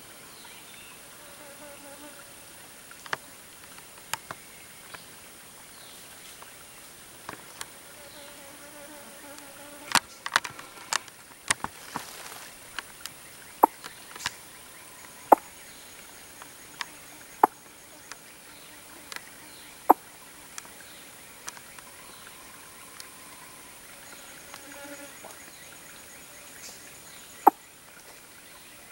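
Forest insects buzzing steadily at a high pitch, with irregular sharp clicks and taps scattered through, the loudest of them bunched in the middle, and faint wavering calls now and then.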